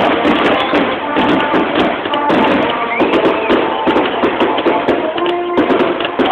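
Fireworks display finale: dense crackling and bangs of aerial shell bursts through a phone microphone, with music and crowd voices underneath.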